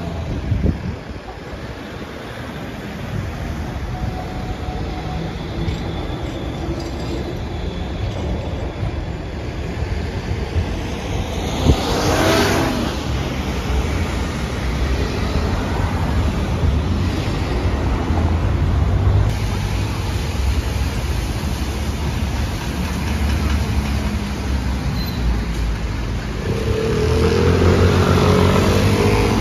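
City street traffic with cars and trams passing, a steady rumble throughout. A brief loud swish about twelve seconds in, and a pitched motor hum swelling near the end.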